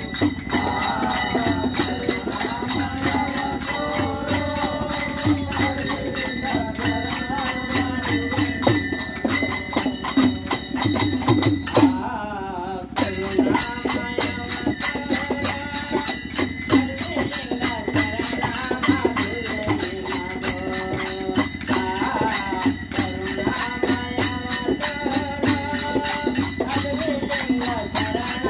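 A group of men singing a devotional bhajan together, kept in time by small hand cymbals clashing on a steady, quick beat. The cymbals drop out for about a second near the middle while the singing carries on.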